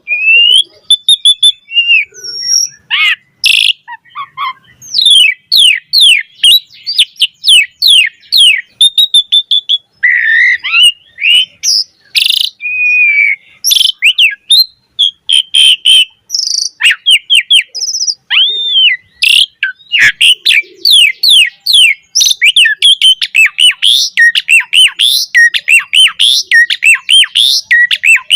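Asian pied starling singing a long, varied song: rapid runs of chirps and whistled glides mixed with short harsh, rasping notes, barely pausing.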